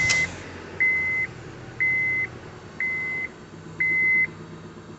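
Honda Civic's dashboard warning chime beeping about once a second, over the car's D17A four-cylinder engine idling just after starting.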